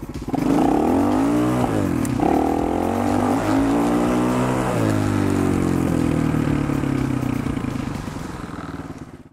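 Kayo K1 250 enduro motorcycle's single-cylinder four-stroke engine pulling away and accelerating. Its pitch climbs, falls back twice and climbs again, then the sound fades out near the end.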